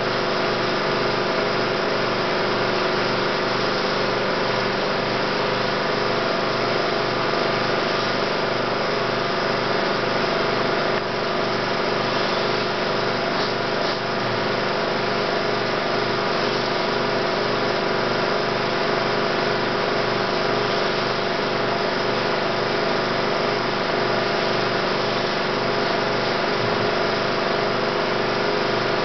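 Steady mechanical whir and hum of a running 16mm film projector, with a fast, even flutter from its mechanism.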